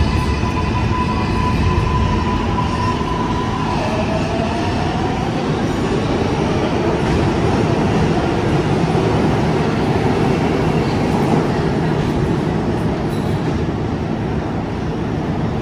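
New York City subway train running through the station, a loud steady rumble and rush of noise. A thin, high wheel squeal is held for the first four seconds, and a lower squeal rises in pitch about four seconds in.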